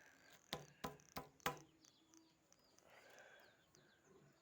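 Soft, freshly softened slime being squeezed and pressed by hand, giving about four sharp little pops in the first second and a half, then near silence.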